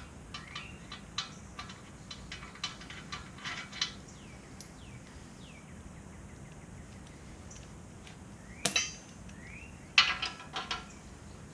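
Hand tools clinking on steel as the bucket's locking-pin bolts are worked loose with a 9/16 ratchet and wrench: a run of small irregular metallic clicks, then two louder ringing clinks near the end.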